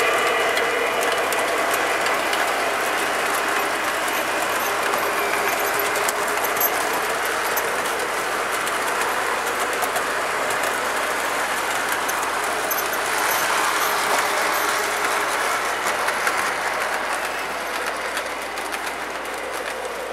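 O-gauge model train running on the layout track, a steady whir and rumble of the motor and wheels that gets somewhat quieter near the end.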